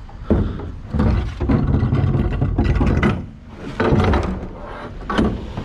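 Vehicle on the move: uneven road and engine rumble with scattered knocks, louder in several stretches.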